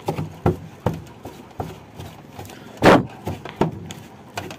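Irregular clicks and knocks of wires being cut and pulled free from a washing machine's timer panel, with one louder scraping clatter about three seconds in.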